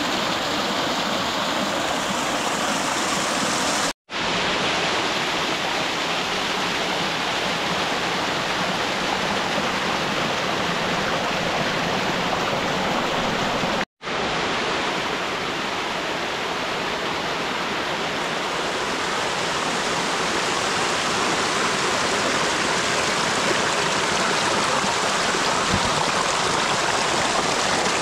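Mountain stream cascading over rocks in small waterfalls: a steady rush of white water, cutting out for a split moment twice, about 4 and 14 seconds in.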